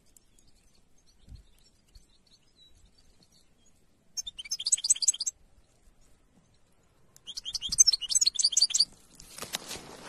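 European goldfinch singing: a few faint chirps, then two bursts of rapid, high, liquid twittering song, the second one longer and louder. A rough rustling noise comes in near the end.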